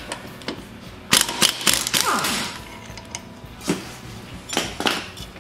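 Tool work on the 5/8-inch bolt holding the electric PTO clutch to the mower engine's crankshaft: a run of sharp metallic clicks and clanks about a second in, with a short falling squeal just after, then a few single knocks.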